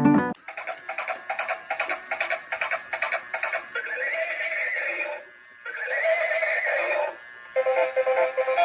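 Tinny electronic music and a synthetic-sounding sung voice from a battery-powered singing farm-animal toy. The sound cuts in abruptly just after the start, pauses briefly twice, and a new tune of repeated notes begins about a second before the end.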